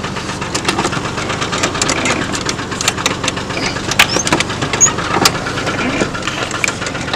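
Red pickup truck's engine running with a steady low drone and irregular sharp knocks; the owner says its noise is why the engine needs replacing.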